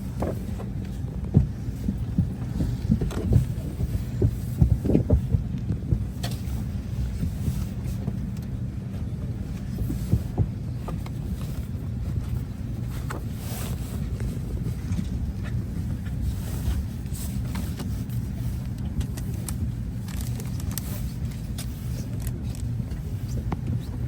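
Steady low hum of an Embraer 190's cabin on the ground, its air-conditioning and ventilation running, with scattered clicks and knocks, most of them in the first few seconds.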